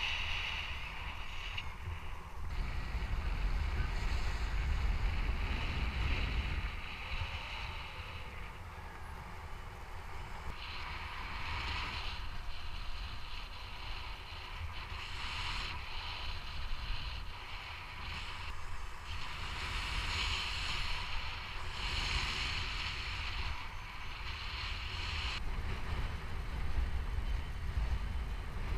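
Rushing wind from flight airspeed buffeting the microphone of a paraglider pilot's action camera: a steady low rumble with gusts of hiss that swell and fade every few seconds.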